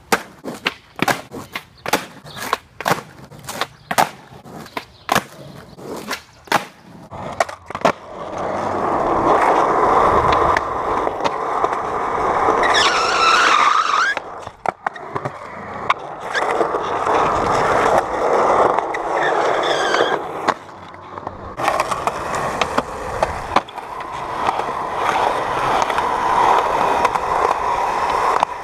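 Skateboard tricks: a quick run of sharp clacks, about two a second, as the board is popped and lands on asphalt. Then the steady rolling of urethane wheels on skatepark concrete, broken by a scraping grind about halfway through and a fainter scrape later.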